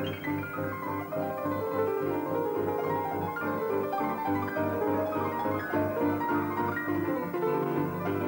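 Instrumental background music led by piano, with a steady low pulse under it.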